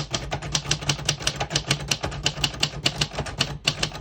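A 1978 Royal Sabre manual portable typewriter typing a sentence: a fast, steady run of type bars clacking against the platen, about seven or eight strokes a second, with a brief pause near the end.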